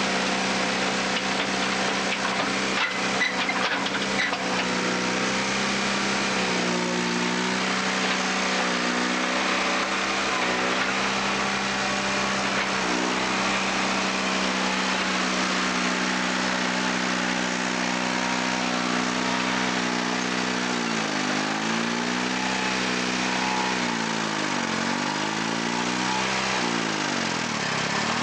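The two-cylinder Detroit Diesel 2-71 two-stroke engine of an Allis-Chalmers HD-5 crawler loader running steadily, its pitch dipping and recovering several times as the machine works. A few sharp knocks come about three seconds in.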